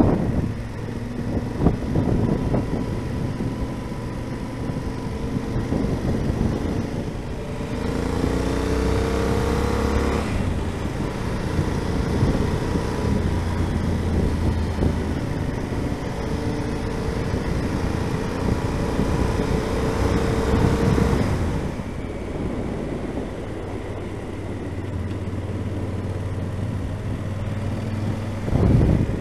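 Yamaha XT1200Z Super Ténéré's parallel-twin engine running on the open road, with wind rushing over the microphone. The engine note rises twice as the bike accelerates, about eight and sixteen seconds in, each time falling away at a gear change or a throttle lift, and a short louder rush comes near the end.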